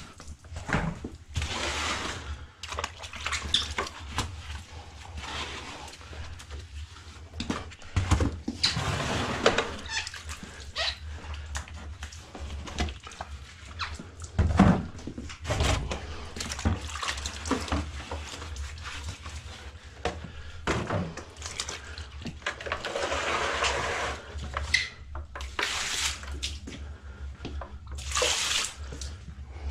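Water pouring and splashing from plastic jugs onto a wet floor, mixed with knocks and rattles of the jugs being handled.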